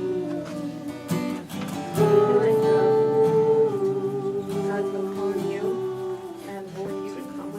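Worship music: a strummed acoustic guitar with a voice singing long held notes.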